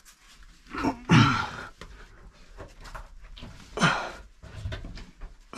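A man's two heavy, strained exhalations while climbing a rock wall, one about a second in and one near four seconds, their pitch falling, with rustling of body and gear against the rock between.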